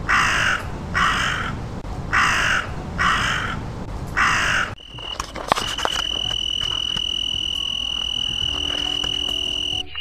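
A crow cawing five times, harsh calls about a second apart. Then, about five seconds in, a steady high-pitched insect trill with a fast flutter takes over.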